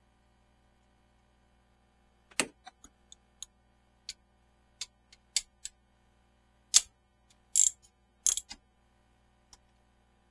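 Irregular sharp clicks and knocks of hard objects being handled, about fifteen of them in bunches, starting about two seconds in.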